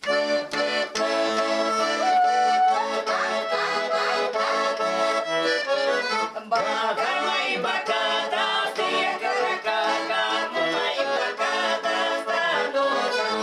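Russian garmon (button accordion) playing a lively folk tune, starting suddenly. A few seconds in, family voices join in singing a folk song over it.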